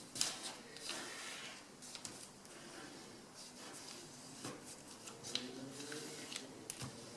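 Sheet of paper rustling and crinkling as hands fold and press its creases, in scattered short rustles.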